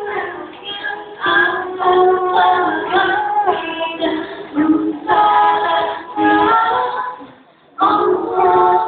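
Choir singing sustained sung phrases; the phrase fades out about seven and a half seconds in and the singing comes back in a moment later.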